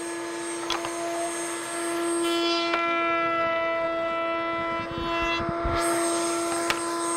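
Table-mounted router running at full speed with a steady high whine. Through the middle, a tongue-cutter bit cuts a trial tongue as a board is pushed along the fence.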